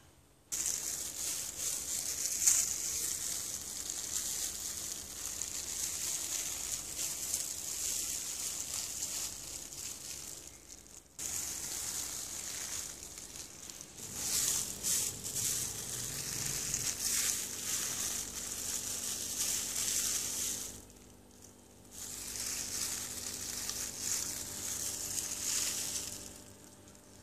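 Ripe mango being squeezed by a hand in a thin plastic glove: the glove crinkles and rustles against the fruit, with the wet squish of pulp being pressed out. It breaks off briefly twice, about eleven seconds in and again near twenty-one seconds.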